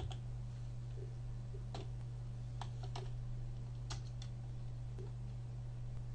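Computer keyboard being typed on: a handful of sparse keystrokes, some in quick pairs, over a steady low hum.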